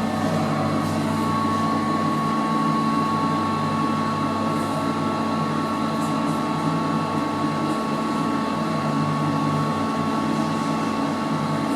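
Glass passenger lift travelling upward between floors, heard from inside the car: a steady mechanical hum with a thin constant whine.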